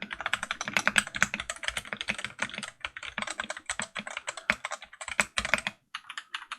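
Custom mechanical keyboard being typed on fast, a quick stream of keystroke clacks with a few deeper thuds, stopping briefly near the end before a few more keystrokes.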